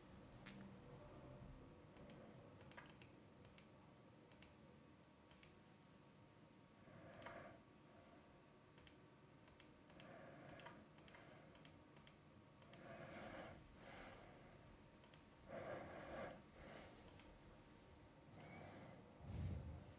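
Near silence with faint, scattered clicks of a computer mouse at a desk. A soft low thump comes near the end.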